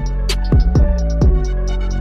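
Background music with a steady beat: deep bass drum hits about twice a second under sustained tones.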